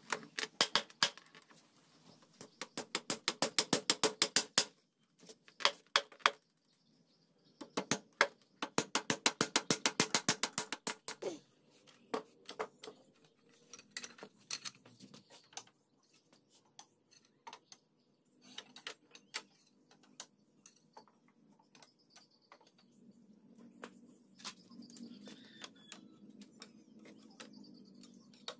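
Hammer driving nails into a wooden frame, in two fast runs of strikes several a second, one from about 2 to 5 seconds in and one from about 8 to 11. After them come scattered light knocks of wooden slats being handled and laid on the frame.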